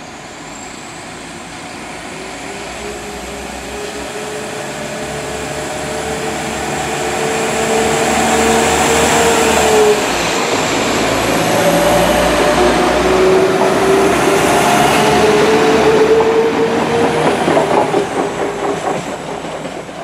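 A Class 172 diesel multiple unit running past the platform, its engine and transmission whine rising in pitch as it accelerates and growing louder as it draws level. Near the end the wheels clatter over the rail joints.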